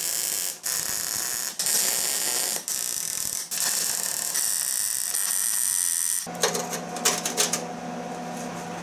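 Wire-feed MIG welder (Lincoln Weld Pak 155) arc crackling as a steel patch is tack-welded into a thin sheet-steel mower deck, in about five separate bursts of roughly a second each. About six seconds in the arc stops and a steady low hum with a few clicks takes over.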